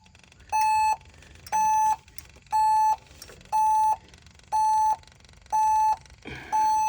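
Warning beeper of an LS MR232 tractor sounding one short, high beep about once a second, seven times, with the key on during a no-start fault.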